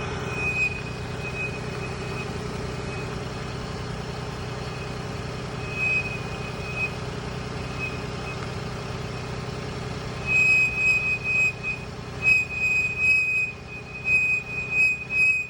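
A 2020 Ford Transit van with a steady low running hum and a thin, high-pitched squeal over it, which is the strange sound in question. The squeal comes and goes briefly early on and around six seconds, then from about ten seconds in is louder and nearly continuous, pulsing in strength.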